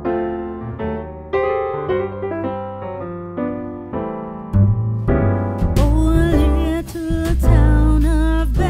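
Background music: electric piano chords, joined about five seconds in by heavy bass and a sung melody.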